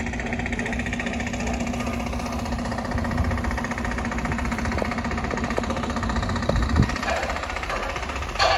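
An engine idling steadily, with an even pulsing hum. The hum eases about seven seconds in.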